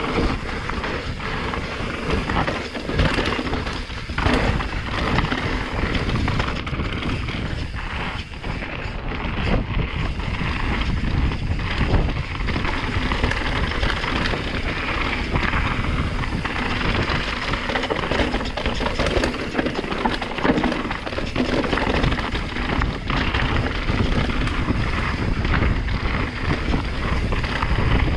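Santa Cruz Megatower enduro mountain bike descending a rough, rocky trail at speed: tyres rumbling over stones, with constant knocks and rattles from the bike and wind rushing over the microphone.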